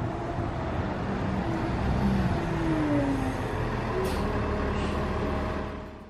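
Articulated city bus passing close by with a steady running noise and a falling whine. There are two short hisses of air about four and five seconds in, and the sound fades just before the end.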